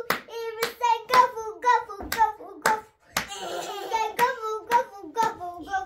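Rhythmic hand claps or slaps, about three a second, with a high voice singing or chanting short syllables in time with them.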